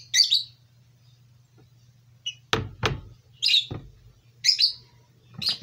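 A small bird chirping in short high calls, about five times, with three sharp knocks a little past halfway and a faint low hum underneath.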